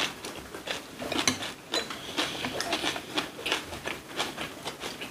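Tableware at a meal: many small, irregular clicks and clinks of utensils against dishes.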